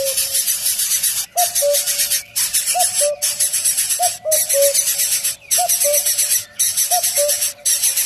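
A loud, steady insect chorus with short breaks, over which a bird repeats a short two-note call, higher then lower, about every second and a half.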